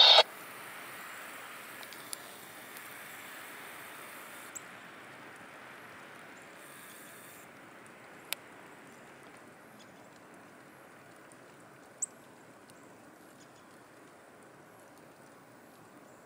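Quiet snowy outdoor ambience: a faint, even hiss that slowly fades, broken by a few brief sharp ticks, the loudest about twelve seconds in.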